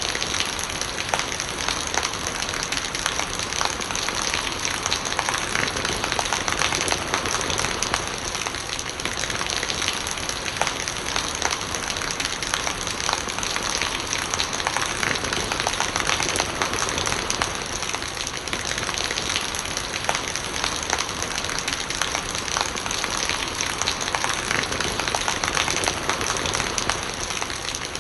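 Steady rain falling, with rainwater gurgling and many small drop hits scattered throughout.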